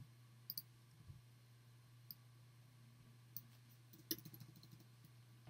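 Faint computer mouse clicks, a few spread out, with the loudest about four seconds in followed by a quick run of small ticks, over a low steady hum.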